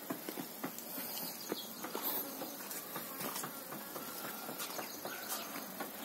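Young chickens in a wire-mesh coop peeping in short, high calls, amid scattered clicks and taps.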